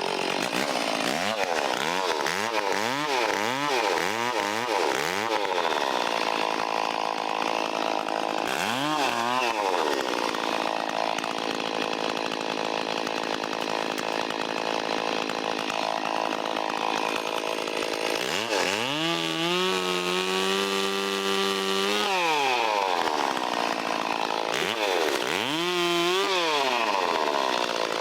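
Stihl 034 two-stroke chainsaw cutting up a fallen tree and its branches. In the first few seconds it is blipped up and down several times in quick succession. After that it holds long stretches at high speed in the cut, with single revs in between and again near the end.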